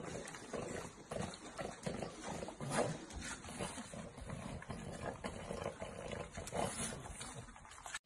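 Several French bulldogs playing face to face, making a string of short, irregular grunts and growls.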